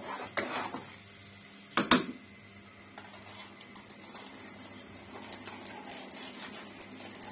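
A spoon stirring in a steel pot of water, with one sharp knock about two seconds in. After that, a faint steady hiss as the water heats on the stove.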